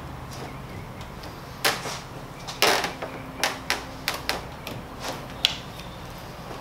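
Hands pressing and patting a carbon-fibre Gurney flap onto the rear spoiler of a Mitsubishi Lancer Evolution X: a string of about nine short taps and knocks, with one longer scraping rustle near the middle.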